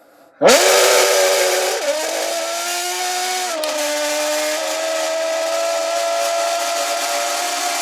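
An imitation of a Formula 1 car engine made by mouth into an empty Monster Energy can: a buzzing tone sweeps sharply up in pitch, like a car accelerating, then holds steady, dropping a step in pitch twice, like gear changes.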